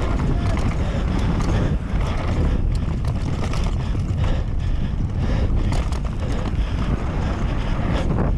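Wind rushing over the camera microphone at downhill speed, over the steady rumble of a Canyon Sender downhill mountain bike's tyres on dry dirt, with repeated sharp clicks and rattles from the bike over the bumps.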